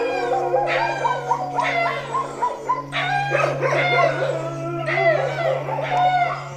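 Several dogs howling and barking at once, overlapping long gliding howls with shorter yelps, over a steady low drone.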